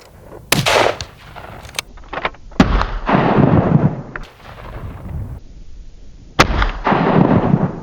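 Three gunshots from a hunting gun, about two and four seconds apart, each followed by a long rolling echo.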